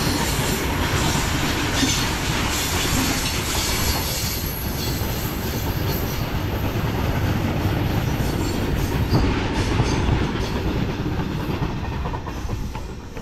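Indian Railways freight train of covered goods wagons passing: a steady loud noise of wagon wheels running on the rails, falling away near the end as the last wagon goes by.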